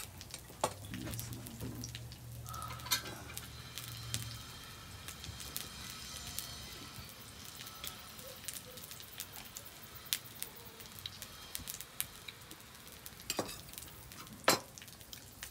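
Salmon fillets searing in oil in a frying pan: a steady sizzle with fine crackling pops. Two sharp clicks stand out near the end.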